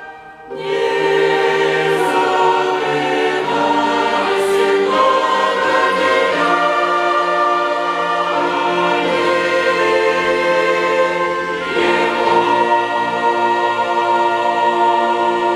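Mixed choir singing with a string and wind orchestra in sustained chords, after a short break at the start; a long chord is held through the last few seconds.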